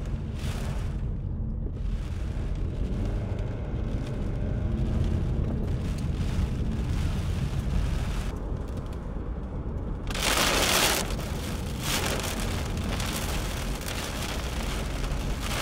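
Steady low rumble of a moving vehicle heard from inside the cabin. About ten seconds in, a sudden loud rush of storm wind buffets the microphone for about a second and then carries on as a rough hiss.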